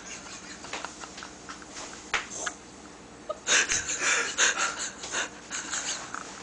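A sleeping person snoring heavily, with snorting, wheezing breaths. The loudest, raspiest stretch comes about halfway through.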